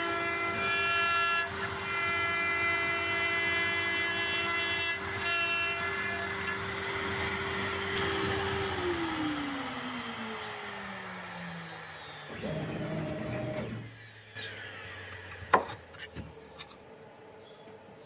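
CNC router spindle running at speed with a steady high whine as its bit cuts through 9 mm plywood. About eight seconds in the spindle is switched off and its pitch slides down as it winds down. Later there is a short rush of noise and one sharp click.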